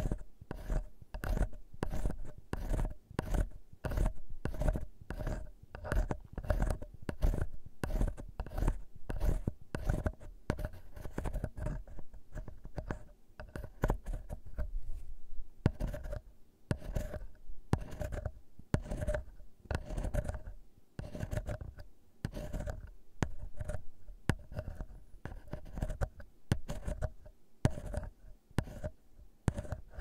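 A wooden ear pick scratching and scraping at a microphone's mesh capsule up close, making mock ear-cleaning sounds. The scratchy strokes come quick and repeated, about two or three a second.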